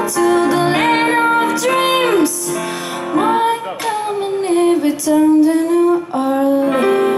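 A woman singing a blues song while accompanying herself on a grand piano, her voice sliding between held notes.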